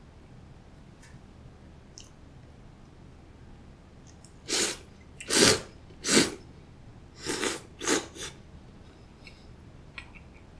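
A person slurping cold soba noodles: a run of five or six loud, quick slurps about halfway in, lasting some three seconds.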